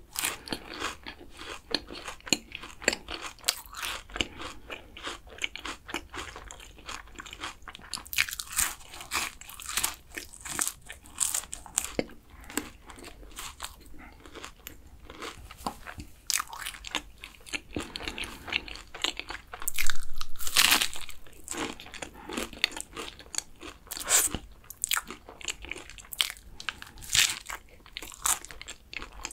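Close-miked crunching and chewing of crisp, caramelized kouign-amann pastry, with many sharp crackly bites and one louder, longer crunch about two-thirds of the way through.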